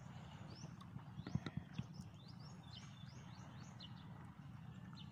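Faint bird chirping: a quick series of short, high, sliding notes, mostly in the first three seconds. A few soft knocks come about one and a half seconds in, over a steady low background noise.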